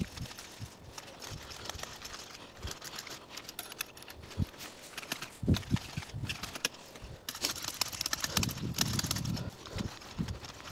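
Wolf Garten scarifying rake's metal tines scratching and scraping through loose soil and dead grass in irregular back-and-forth strokes, with a few soft knocks, busier in the second half. The tines are churning up the topsoil of a bare patch ready for seeding.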